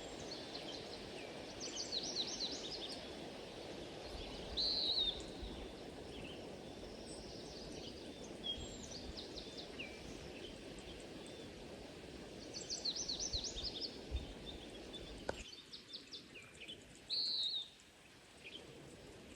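Songbirds calling: short repeated chirps and quick trills, over a steady low background rumble that cuts off suddenly about 15 seconds in.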